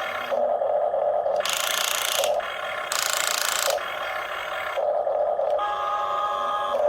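Small electric motors of a radio-controlled toy excavator running with a steady whine, with two harsher hissing, grinding stretches about a second and a half and three seconds in, then a higher whine in several tones near the end as the machine works.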